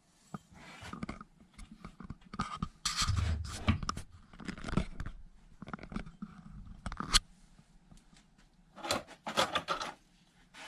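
Irregular scraping of a cutting tool on metal as the edge is taken off a VW cylinder head's valve seat, in short strokes of varying length.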